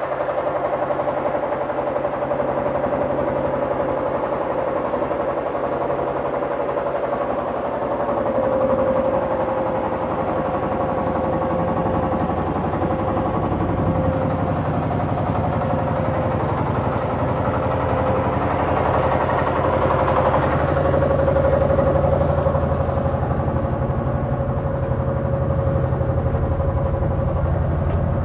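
Fishing boat's inboard engine running steadily while the boat is under way, a constant drone with a steady tone.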